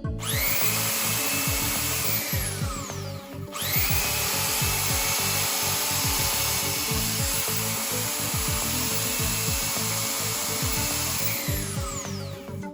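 Makita 9031 belt sander motor run twice: it spins up, runs about three seconds and winds down, then starts again at once and runs for about eight seconds before winding down near the end.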